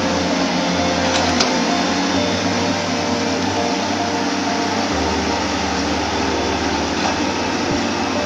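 Hydraulic excavator's diesel engine running steadily under working load as the arm digs into floating debris, its low hum shifting once about five seconds in.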